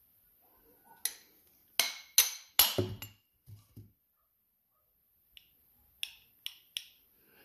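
Light metal clicks and clinks of a lawn mower carburetor being taken apart by hand as its bowl comes off. A cluster of sharp clinks in the first half, the loudest about two and a half seconds in, then four lighter ticks near the end.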